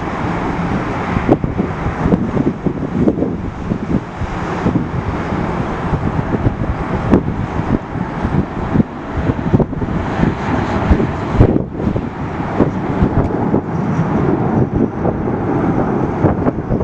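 Strong wind buffeting the microphone in irregular gusts and thumps, over a steady rumble.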